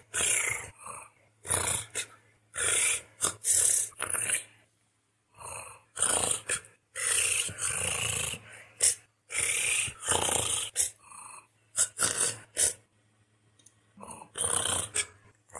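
A human voice reciting a passage in a purr-based constructed language: a string of short purring, trilled vocal sounds, each under a second, separated by brief pauses.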